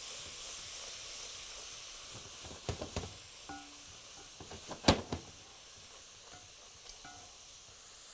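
Onions, carrots and garlic sizzling in a pot over high heat, the sizzle slowly dying down. A wooden spoon stirs and knocks against the pot a few times, hardest about five seconds in.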